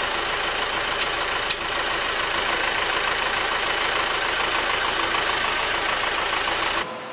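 Tractor diesel engine running steadily close by, with a sharp click about a second and a half in; the engine sound cuts off abruptly near the end.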